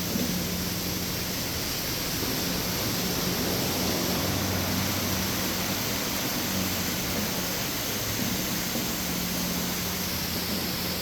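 Milking parlour machinery running: a steady hiss over a low, even hum, typical of the vacuum system of a working milking installation.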